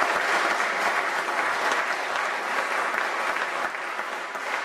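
Audience applauding: dense clapping that slowly thins and fades.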